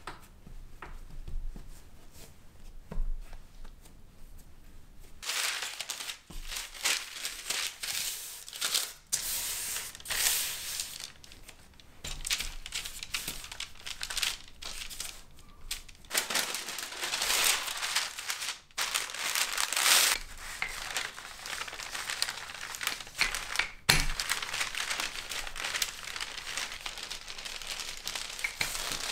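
Parchment paper crinkling and rustling as it is handled and pressed over a ball of shortbread dough, in quick crackly bursts after a few quieter seconds of hands pressing the dough. One sharp knock late on.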